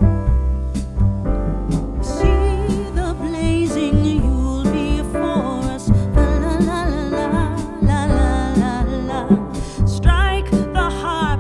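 Background music: a song with a singing voice over piano or keyboard chords and a steady beat, the voice entering about two seconds in.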